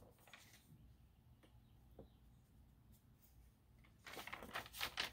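Near silence: room tone with a few faint ticks. About four seconds in comes a brief spell of soft, noisy rustling.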